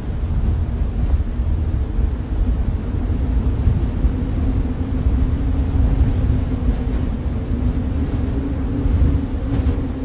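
Storm wind blowing steadily, the sound of a snowstorm, with a deep rumble carrying most of it.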